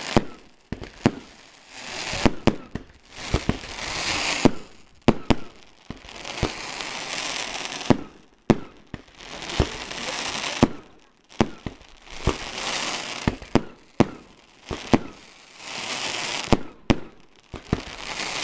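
A consumer firework battery firing shot after shot. Each shot rises with a hissing tail and ends in sharp bangs and crackles, and the cycle repeats about every two to three seconds.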